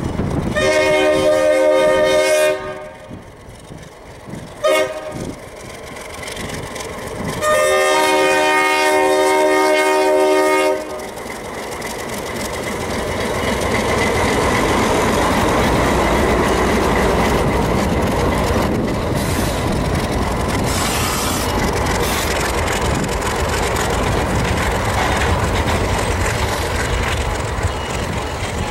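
Alco RS-3 diesel locomotive blowing its multi-note horn: a long blast, a short one and another long one, the grade-crossing pattern. The locomotive and its train then pass, and the engine and wheel noise builds to a steady loud rumble.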